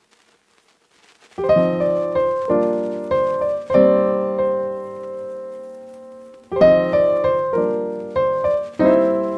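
Background piano music: chords struck in two short phrases, each ringing and fading, starting a little over a second in.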